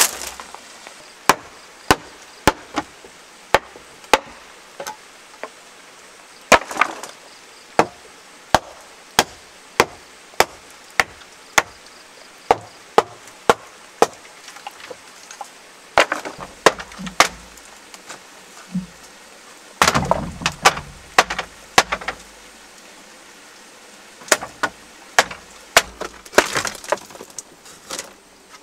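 Dry woven bamboo and old wooden poles being handled and pulled apart: sharp wooden knocks and cracks, one or two a second, with a few longer bursts of crackling and splintering.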